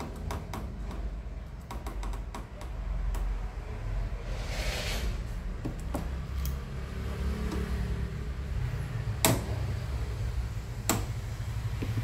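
Small clicks and taps of hands handling wires and multimeter test leads, with a brief rustle about halfway and two sharper clicks near the end, over a steady low background rumble.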